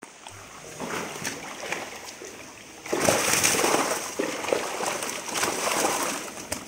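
Rohu carp thrashing in a crowded net drawn up in the water, splashing hard. The splashing grows much louder about three seconds in.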